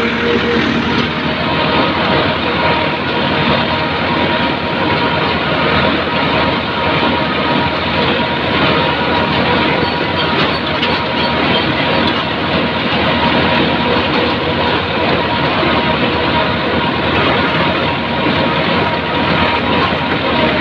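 A tractor with a mounted boom sprayer running steadily in the field, heard loud and close from on board: a constant engine-and-machinery din with a faint steady whine in it.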